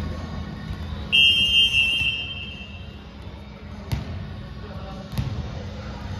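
Referee's whistle blown in one long, shrill blast of about two seconds, followed by two sharp thuds of a volleyball being hit or bounced on the court.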